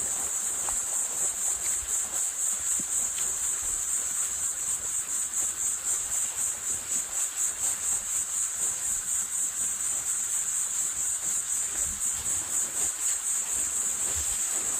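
Continuous high-pitched insect trill, pulsing rapidly and evenly.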